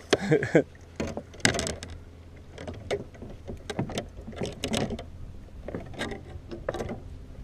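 Scattered knocks, bumps and rattles of handling gear in a small fishing boat while a bass is landed with a net, over a faint low steady hum.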